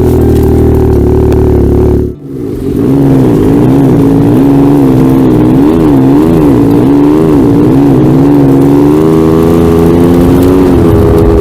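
Snowmobile engine running close by: it drops briefly about two seconds in, then its pitch rises and falls over and over as the throttle is worked, before steadying at a slightly higher speed near the end.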